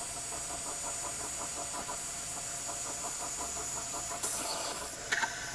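Mazak Integrex mill-turn machine at work, drilling the tap-drill holes for 1/4-20 threads with a 0.203-inch cobalt high-speed steel drill: a steady machining noise with a fast, even pulsing and a high hiss. The hiss grows louder for about a second near the end, then a sharp click.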